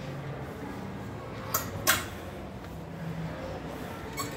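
Low steady background hum with sharp clicks as a suit jacket is put on: two close together about a second and a half in, and one more near the end.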